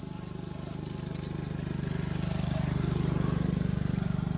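A small engine running with a fast, even putter, growing louder over the first two seconds or so.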